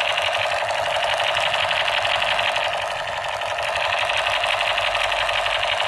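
Battery-powered toy submachine gun playing its electronic firing sound: a rapid, continuous machine-gun rattle through its small built-in speaker.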